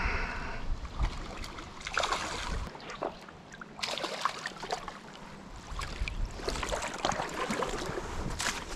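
River water splashing and churning as a hooked smallmouth bass thrashes at the surface and is scooped into a landing net, with a steady low rumble underneath.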